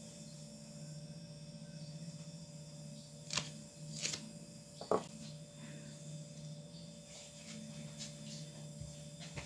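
Quiet steady low hum, with a few light clicks and taps around the middle as a nail polish bottle and brush are handled between strokes.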